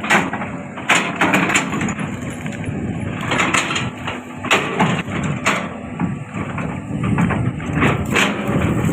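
Cat 320D L excavator's diesel engine running under load, with repeated sharp cracks and snaps of tree wood and branches breaking as the machine pushes the tree down.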